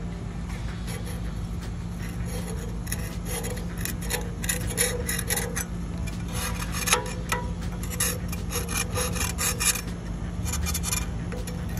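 Metal scraper blade scraping bubbled paint, softened with aircraft paint stripper, off a minibike's metal frame tube in repeated strokes. The strokes start a few seconds in and come thickest in the middle and later part.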